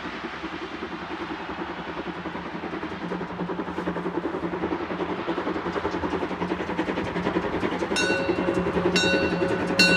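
750 mm narrow-gauge steam locomotive 99 1749-3 working hard as it pulls its train away, its exhaust chuffing in a steady fast beat that grows louder as it approaches. Near the end, background music with ringing percussive strikes comes in over it.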